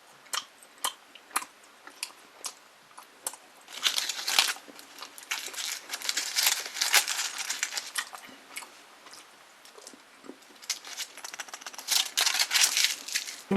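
Foil wrapper of a chocolate surprise egg being crinkled and torn off, with scattered small clicks and snaps from handling the egg. The crinkling comes in spells, heaviest about four seconds in, again around six to eight seconds, and near the end.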